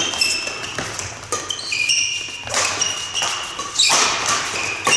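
Badminton doubles rally: several sharp racket hits on the shuttlecock, spaced a half second to a second or so apart, among many short high-pitched squeaks of court shoes on the hall floor.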